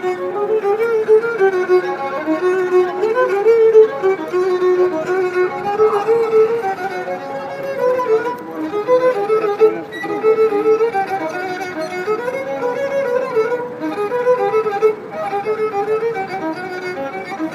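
A gusle, the Serbian bowed folk fiddle, played solo: one continuous, wavering melody line in a middle register.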